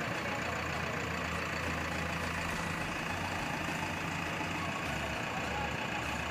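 JCB backhoe loader's diesel engine idling with a steady low hum.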